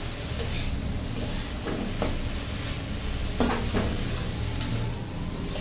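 A metal spatula stirring chopped vegetables and spice powders in a metal kadhai, scraping and giving a handful of sharp clinks against the pan at irregular intervals.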